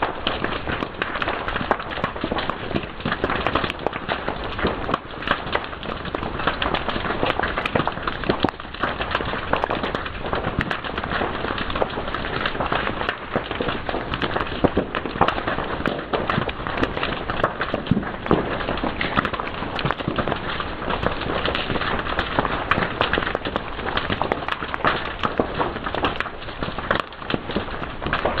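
Fire crackling and popping: a continuous dense crackle with frequent sharp, irregular pops.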